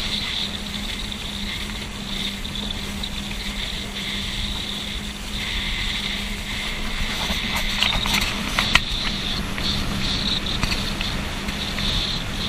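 A boat's engine running steadily at speed with a constant hum, over the rush of water past the hull, with a few splashes of spray about two-thirds of the way through.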